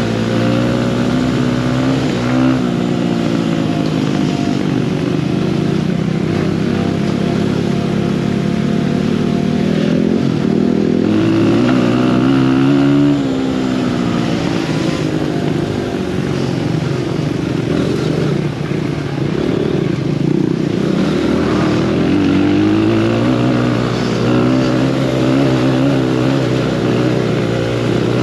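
A 100cc dirt bike's engine running under way on a trail, heard from the rider's seat, its revs climbing and dropping repeatedly with throttle and gear changes.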